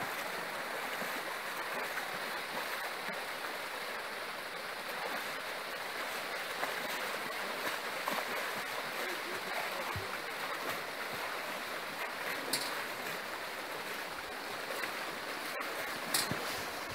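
Shallow, fast river running over rocks: a steady rushing wash of water.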